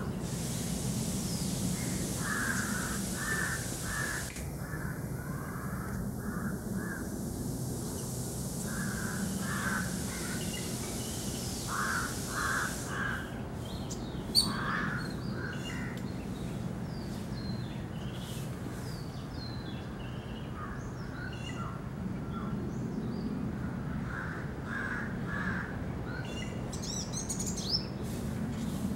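Yellow-billed babblers calling in short bursts of three or four quick notes, repeated every few seconds, with thinner, higher chirps in between.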